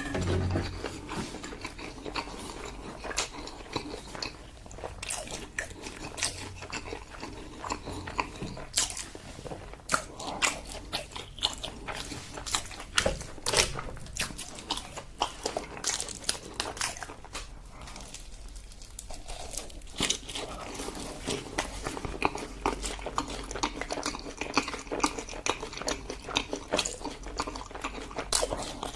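Close-miked eating sounds: a person biting and chewing food, with frequent wet smacks and sharp clicks and a quieter stretch about two-thirds of the way through.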